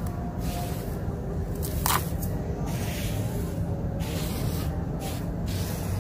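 Dry, dusty sand-cement mix with concrete grit crumbling and trickling into a plastic basin: a run of short, sandy hissing sprinkles, the strongest about two seconds in, over a steady low rumble.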